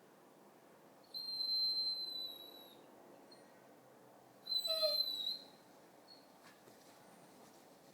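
Basset hound giving two high-pitched whines: a long steady one about a second in, then a shorter, wavering one a few seconds later.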